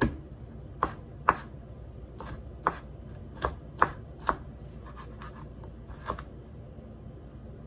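Large kitchen knife chopping pineapple peel and core scraps on a plastic cutting board: about eight sharp, irregularly spaced chops, thinning out after about four seconds.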